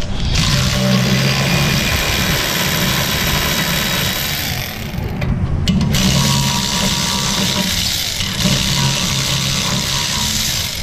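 Power ratchet running in two long runs of about five seconds each, with a short stop near the middle, backing out the rear brake caliper bracket bolts.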